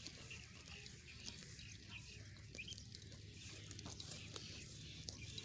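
Dumba sheep close by cropping and chewing grass: faint, irregular crunching and tearing clicks.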